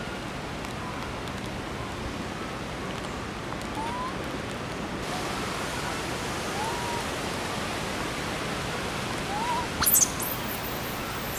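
Steady outdoor hiss, like running water or wind, with a few short faint chirping calls. A brief shrill, very high squeal comes about ten seconds in and is the loudest sound.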